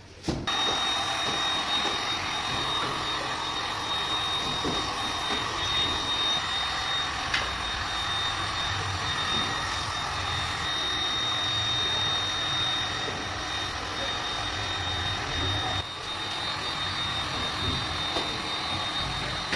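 A small electric hot-air blower runs steadily, a loud rushing hiss with a thin, constant high whine. This is the kind of tool used to warm laminate adhesive in cold weather.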